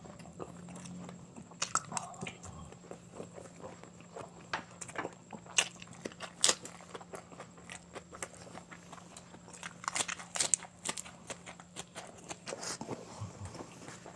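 Close-miked chewing of boiled quail balut (pugolot) and lettuce: irregular wet mouth smacks and sharp clicks, several in quick clusters.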